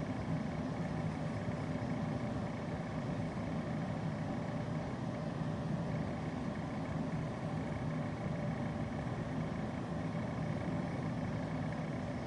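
A steady low mechanical hum with a faint hiss over it.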